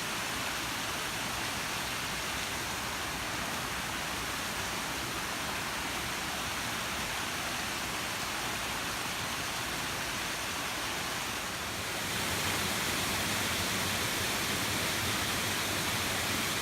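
Steady rush of a jungle waterfall, an even noise with no tones, growing a little louder about twelve seconds in.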